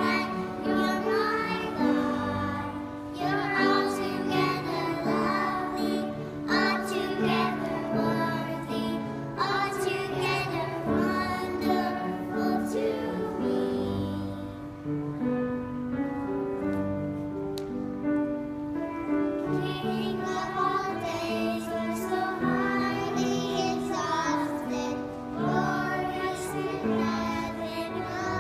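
A small group of young children singing a song together in unison, with low sustained accompaniment notes underneath.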